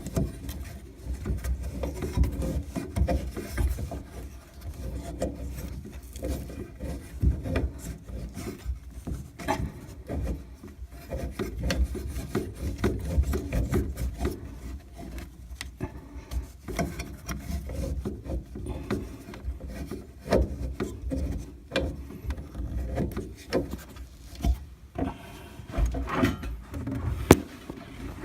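Hand-held rotary pipe cutter being turned around a copper pipe: a continuous irregular scraping and rubbing as the cutting wheel scores the copper, with small clicks and knocks from the tool and pipe.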